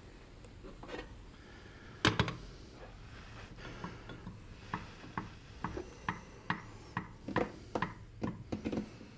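A kitchen utensil knocking against cookware: one sharper knock about two seconds in, then a run of light, irregular taps about twice a second.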